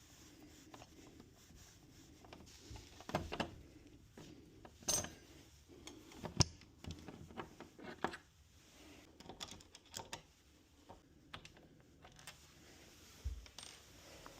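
Irregular metallic clicks, clinks and light knocks from a door knob and its lock hardware being worked on, with the loudest strikes near 3, 5 and 6.5 seconds in.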